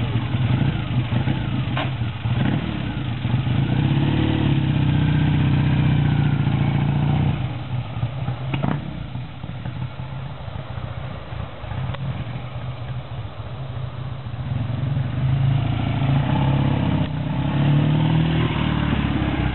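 Classic Triumph Bonneville parallel-twin motorcycle pulling away, its exhaust note rising as it accelerates. About seven seconds in it grows fainter as the bike rides off, then grows loud again near the end as it comes back and passes close by.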